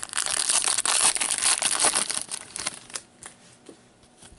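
A trading card pack's wrapper being torn open and crinkled by hand: a dense rustle that dies away about three seconds in, followed by a few faint clicks.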